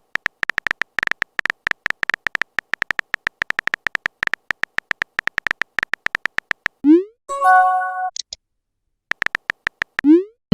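Smartphone messaging-app sound effects: a rapid, irregular run of keyboard typing clicks, then about seven seconds in a quick rising swoop and a short bright chime as a message goes through. A few more typing clicks follow, and another rising swoop comes near the end.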